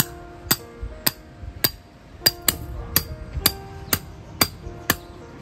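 Metal hammer driving a steel tent peg: sharp metallic strikes about two a second, each ringing briefly, with a quick double strike about halfway through.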